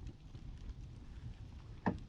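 Low rumble of wind on the microphone, with one sharp click near the end.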